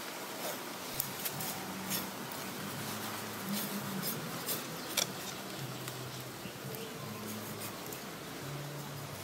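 An insect buzzing close by, its low hum wavering up and down in pitch, over a steady hiss, with a few sharp clicks from a knife cutting raw duck meat on a stone; the loudest click comes about five seconds in.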